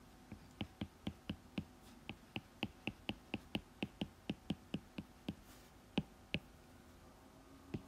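A run of light, sharp clicks, about four a second, each one marking a stroke as crosses are drawn one by one on an on-screen puzzle grid. The clicks stop about six and a half seconds in, with one more near the end.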